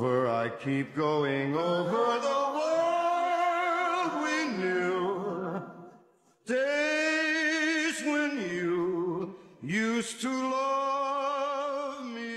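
A single voice singing slow, long-held notes with vibrato, with little or no accompaniment. It breaks off about six seconds in, starts again, and pauses briefly just before ten seconds.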